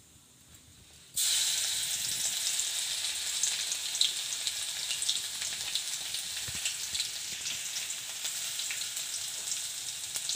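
Crushed garlic, pounded with its skin on, sizzling in hot tempering oil with fennel and urad dal in a kadai. The sizzle starts suddenly about a second in and goes on as a steady hiss with scattered small pops.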